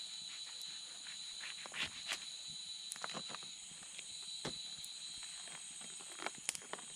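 Steady high-pitched trilling of forest insects, with scattered sharp clicks and snaps from work at a campfire.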